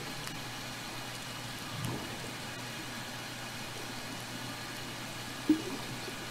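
Underwater ambient noise picked up by a hydrophone: a steady watery hiss over a low steady hum, with one sharp knock about five and a half seconds in.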